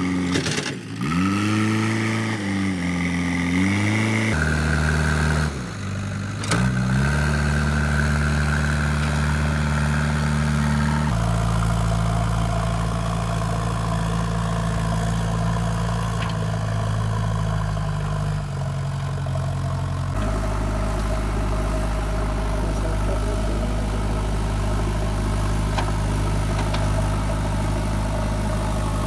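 JCB 3DX backhoe loader's diesel engine revving, its pitch dipping and rising several times in the first few seconds, then running at steady speeds that change in sudden steps a few times.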